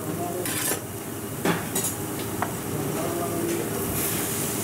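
Metal spatula scraping and clacking a few times on a flat steel griddle while food sizzles on the hot plate, over a steady low kitchen hum. The sizzling hiss grows louder near the end.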